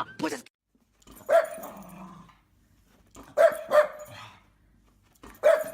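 A dog barking four times: single barks about a second in and near the end, with a quick pair in the middle.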